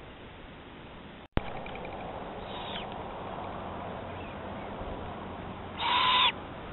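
An owl calls once near the end, a single loud call lasting about half a second, over the steady hiss of a trail camera's microphone. There is a sharp click about a second in as the recording cuts to a new clip.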